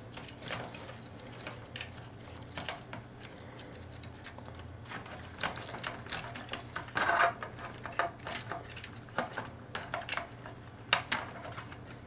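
Plastic parts of a transforming robot figure being handled: irregular clicks and light knocks as joints and pieces are moved and pressed into place, with a denser cluster about seven seconds in and another near eleven seconds. A faint steady low hum lies underneath.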